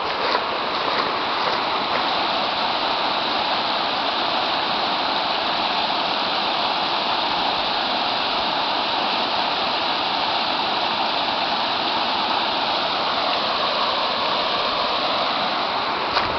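River water rushing over rocks in a shallow rapid: a steady, even rush.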